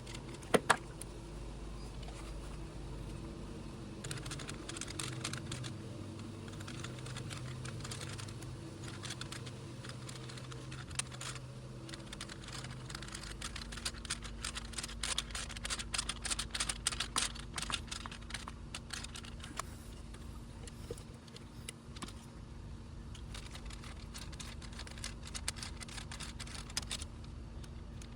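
Irregular light clicks and taps, densest about halfway through, over a faint steady hum.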